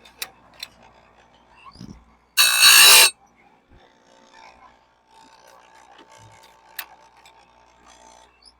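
Electric chainsaw-chain sharpener's grinding wheel grinding one tooth of a sawmill bandsaw blade in a single short, harsh burst about two and a half seconds in. Light clicks and handling noises come between passes.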